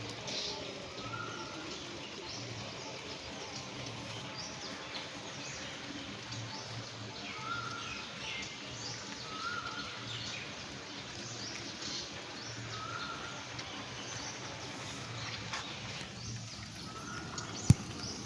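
Steady rain with small birds chirping throughout, and a short clear note recurring every few seconds. A single sharp click near the end.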